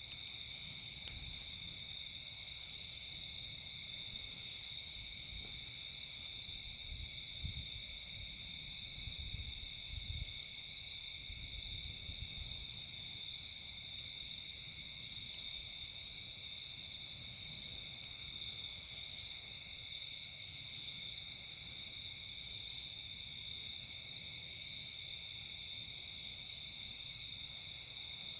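Steady chorus of crickets and other night insects, a continuous high-pitched trilling that does not let up, over a low rumble, with a few faint crackles from the campfire.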